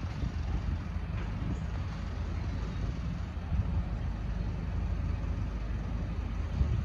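Low, steady rumble of road traffic, most of it deep and wavering unevenly.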